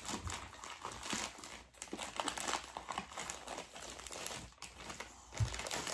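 Plastic mailer bag crinkling and tearing as it is pulled open by hand, with a soft thump near the end.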